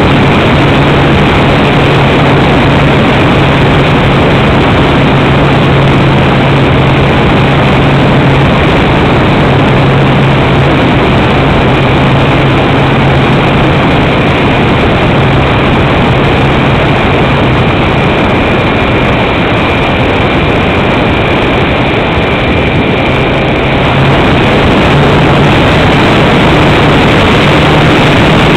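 Motor and spinning propeller of a powered model glider heard from on board in flight: a loud steady drone with a constant low hum over rushing air noise.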